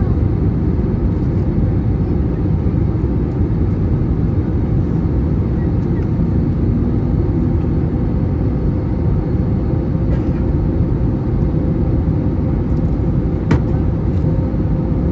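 Cabin noise inside an Airbus A321neo with CFM LEAP-1A engines on descent: a loud, steady low rush of airflow and engine with a faint steady hum. A single brief click comes near the end.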